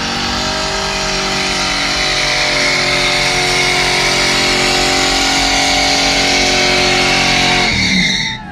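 Ford Mustang's engine held at steady high revs during a burnout, with the rear tyres spinning. The revs drop off sharply near the end.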